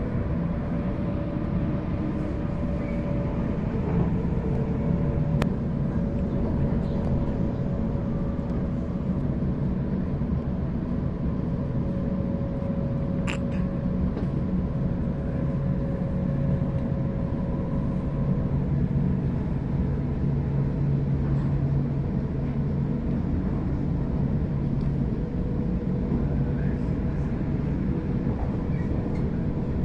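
Onboard a Sydney Trains Waratah electric train running between stations: a steady rumble of wheels on the track with a faint steady whine. A brief sharp click sounds about 13 seconds in.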